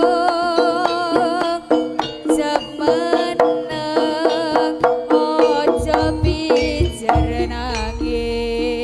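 Live jaranan gamelan music: quick kendang hand-drum strokes under a held, wavering melodic line. Deep low drum strokes come in at about six to seven seconds in.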